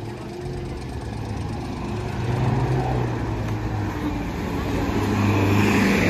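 A road vehicle's engine running close by, a steady low hum that grows louder over the few seconds, with a rise of road noise near the end.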